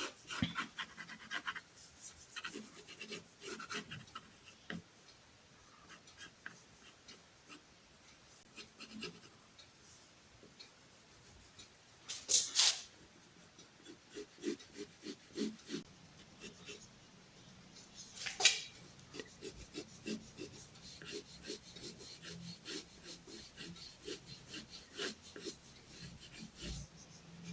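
Short scratching strokes of a drawing tool on paper, with two louder brushing sounds about twelve seconds in and again about six seconds later.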